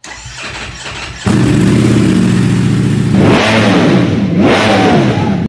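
A motor vehicle's engine revving hard. It comes in suddenly about a second in, then its pitch dips and climbs several times in quick blips near the end before cutting off abruptly.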